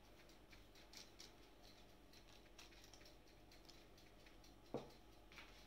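Near silence, with faint soft pats and rustles as fingertips press into risen yeast dough on parchment paper. One short, soft thump comes near the end.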